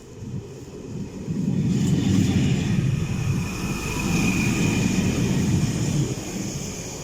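A train passing close by: a heavy low rumble with a hiss above it builds about a second in and stays loud, with a brief high squeal around four seconds in.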